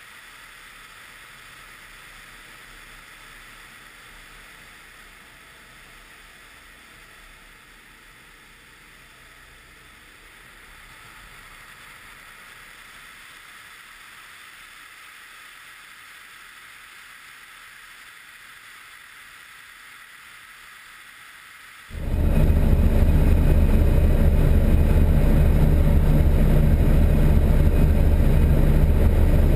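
A faint, steady rush of airflow with a low hum from the Pipistrel Virus SW 100's engine and propeller in the background. About three quarters of the way through it switches suddenly to a loud, steady drone from the Rotax four-cylinder engine and propeller, heard inside the cockpit.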